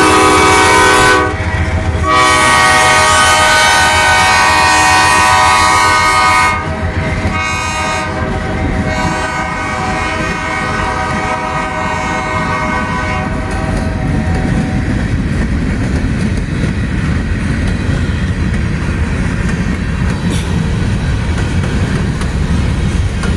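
Locomotive's Nathan K5LA five-chime air horn blowing a long chord. It breaks off briefly about a second in, sounds loud again until about six seconds in, then carries on more quietly and fades out past the middle. After that the freight cars of a manifest train roll past, wheels clicking over the rail joints with a steady rumble.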